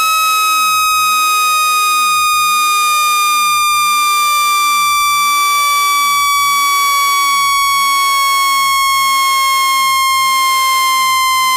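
Synthetic speaker water-eject tone: one loud, steady, buzzy tone gliding slowly down in pitch, played to shake water droplets out of a phone speaker.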